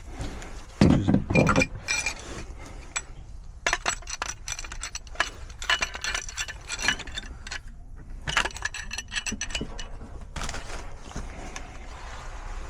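Metal pipe fittings and hand tools clinking, clicking and scraping as threaded gas pipe is fitted to a furnace gas valve, with a couple of heavy knocks about a second in and quick runs of ringing metallic clicks after.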